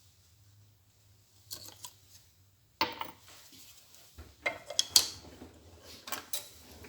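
Kitchenware knocking and clinking against a mixing bowl, a few sharp knocks with short scrapes between them, as oil is added to a whipped egg-and-sugar batter.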